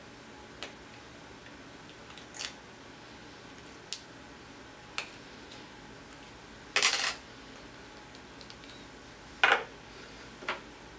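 Small metal parts of a BMX freecoaster hub driver clicking and clinking as they are handled and set down on a table: scattered single clicks, the loudest a short cluster about seven seconds in and another about two and a half seconds later.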